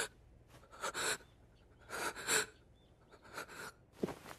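Panicked, ragged breathing from a young man's voice: about four short, sharp gasps roughly a second apart, the last one voiced and falling in pitch.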